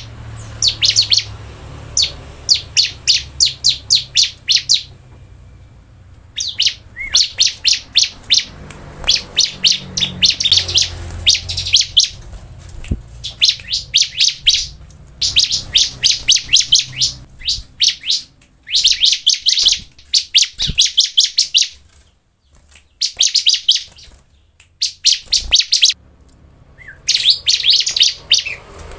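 Bar-winged prinia (ciblek) singing: bouts of rapid, high, repeated chirping notes, each bout lasting one to three seconds, broken by short pauses.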